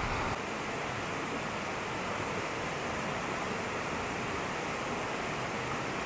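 Mountain stream rushing steadily over rocks and small rapids in a narrow rocky gorge. A low rumble stops abruptly just under half a second in, leaving only the even rush of water.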